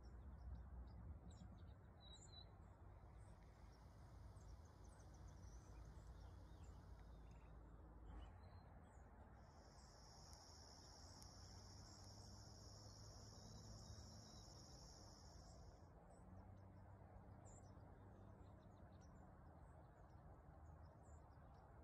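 Faint outdoor ambience, near silence, with a low rumble. A steady high insect trill runs for about six seconds in the middle, and there are scattered faint high ticks.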